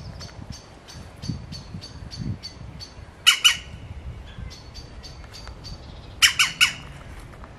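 Wild birds calling in woodland: a steady series of short high notes about three a second, cut across by loud harsh squawks, two about three seconds in and a quick run of three near the end.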